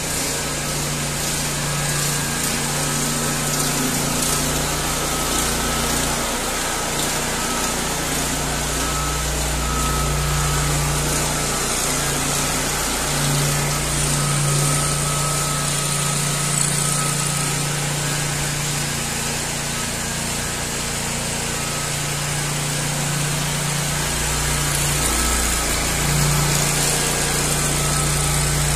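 Gener HK764 764 cc V-twin petrol engine running steadily, driving a ride-on power trowel as it works across a concrete floor, with small swells in engine level.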